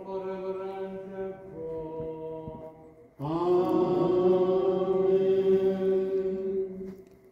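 Liturgical chant: two long held sung notes. The first steps up in pitch about halfway through; the second comes in louder a little after three seconds and is held steady for about four seconds before it stops.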